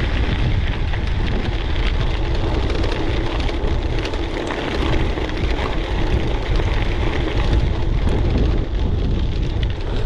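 Gravel bike tyres crunching and rattling over a loose gravel track, with wind buffeting the microphone as a deep rumble.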